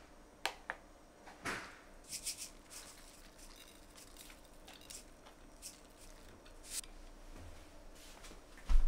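Scattered light clicks, clinks and rustles of kitchen items being handled, with a sudden louder thump near the end.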